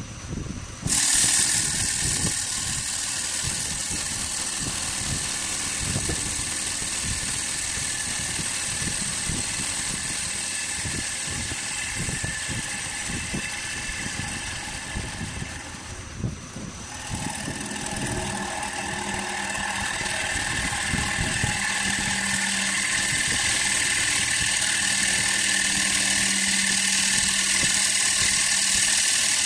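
Steel tool working the inside of a wooden bowl spinning on a powered lathe: a steady, high scraping noise over the hum of the lathe. It starts suddenly about a second in, drops away for about a second midway as the tool comes off, then carries on.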